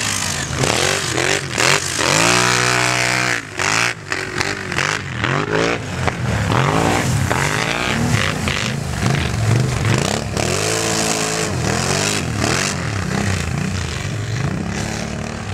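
Several racing ATV engines revving hard, their pitch rising and falling again and again as the throttles open and close. About two seconds in, one engine holds a steady high rev for a second or so before dropping away.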